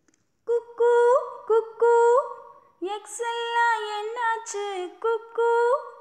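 A woman's voice singing an unaccompanied melody, starting about half a second in: short held notes that each slide upward at the end, with a quicker run of changing notes in the middle.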